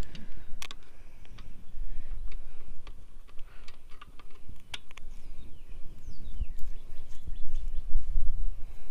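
Scattered light clicks of a screwdriver on the small fuel pump cover screws of a 2006 Yamaha 15 hp outboard, over a low rumble of wind on the microphone that rises and falls. A bird chirps a few quick falling notes about six seconds in.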